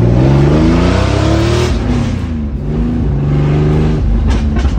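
Porsche 911 Speedster's air-cooled flat-six, a twin-plug 3.6-litre with an aggressive cam, accelerating hard. The engine note climbs for nearly two seconds, drops at a gear change, climbs again and holds, then falls away near the end.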